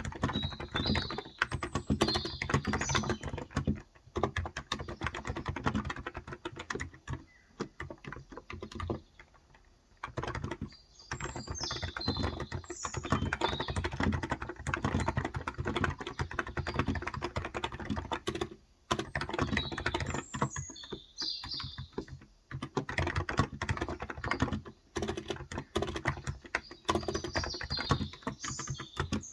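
Typing on a Cox Endeavour electro-capacitive keyboard with light 35 g switches: fast runs of key strokes broken by short pauses. Birds chirp outside now and then in the background.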